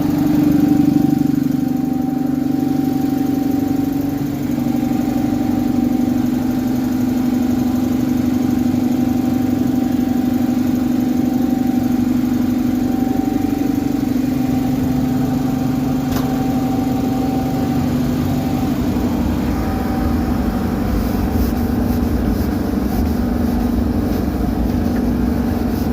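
Vintage Lister stationary diesel engine running steadily, driving a generator, with a continuous hum whose pitch shifts slightly now and then.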